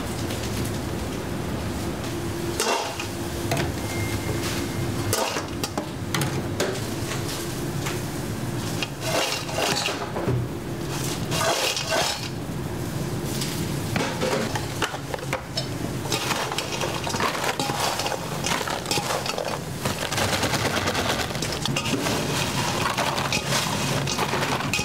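French fries tossed and tipped into a stainless-steel mixing bowl, rattling and clattering against the metal in irregular bursts, over a steady low hum of kitchen equipment.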